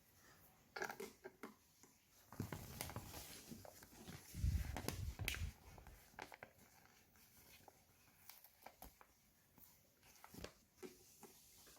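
Faint handling noises of plastic toy parts: scattered light clicks, taps and rustles. A louder run of dull low knocks comes about four to five seconds in.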